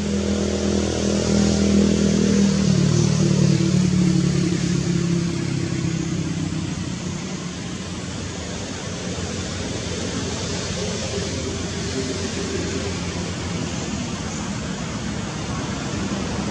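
A motor vehicle's engine humming, loudest a few seconds in, then fading away after about six seconds, leaving a steady outdoor hiss.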